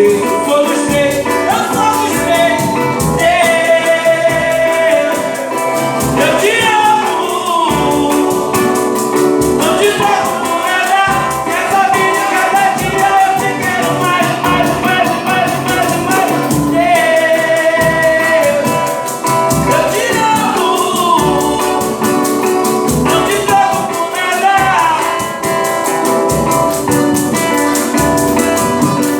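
A gospel group singing a song with band accompaniment, the voices holding long notes over the instruments.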